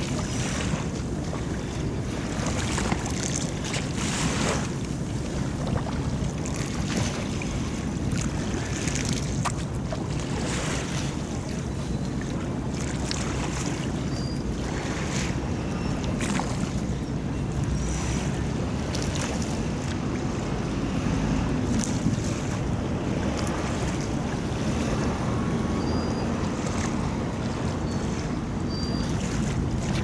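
Small harbour waves lapping and splashing against the shore in irregular slaps every second or two, over a steady low rumble.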